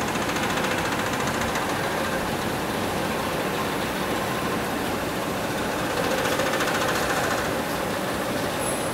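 Gravure printing machine running idle: a steady mechanical running noise with a fast, even ticking from its moving parts.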